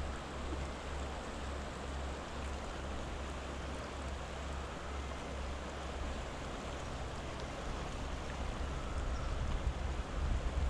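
Shallow, rocky river running over stones: a steady rush of water. A low wind rumble on the microphone sits under it and grows gustier near the end.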